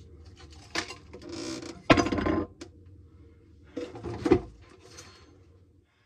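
A bundle of alarm cables being handled by hand, rustling, with a few sharp knocks and clinks; the loudest knock comes about two seconds in and another just after four seconds.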